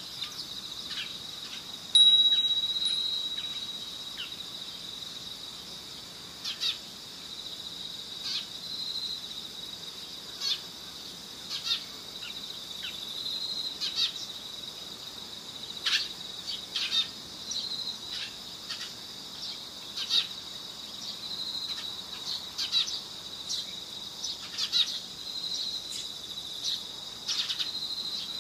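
Steady high insect trilling with short, sharp bird chirps scattered throughout. A single chime rings out about two seconds in and fades over a couple of seconds.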